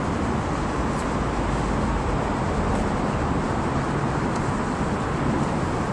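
Steady road-traffic noise from the elevated freeway directly overhead, an even wash of tyre and engine sound with no single vehicle standing out.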